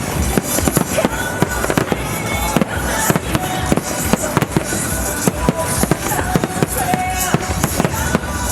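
Starmine fireworks barrage: many shells bursting in quick, irregular succession, with music from loudspeakers playing underneath.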